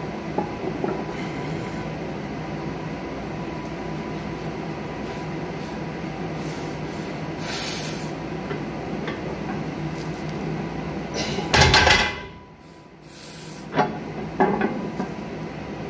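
Steady low drone of gym ventilation while a lifter rests at the bottom of a heavy barbell deadlift. About two-thirds through, a loud rush of breath cuts in, the drone drops away, and a couple of light knocks follow.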